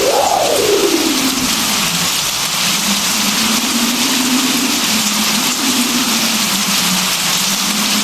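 Steady rain falling, an even hiss, with a low humming tone under it that slides down in pitch over the first two seconds and then wavers at a low steady pitch.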